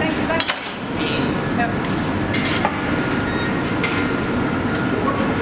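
Steady roaring background of a glassblowing hot shop's furnaces and fans, with a few sharp knocks and clinks of glass and wood; the loudest comes about half a second in.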